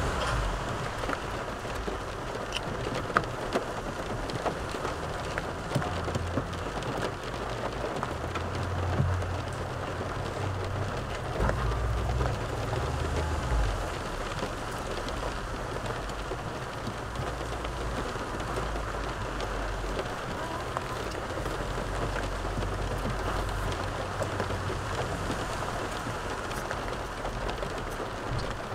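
Steady hiss and fine patter inside a car cabin, broken by a few sharp clicks of a fork against a plastic takeaway container as food is scooped up.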